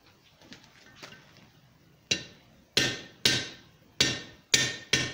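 Blacksmith's hammer tapping a hot tapered bar's scroll against the anvil: two faint knocks early, then a run of six sharp ringing strikes in the second half, about one every half second, correcting the curl of the scroll.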